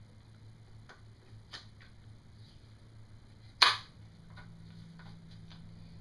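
A few light clicks, then one sharp clack about three and a half seconds in, as the lower receiver of an Akdal MKA 1919 shotgun is fitted back onto the upper.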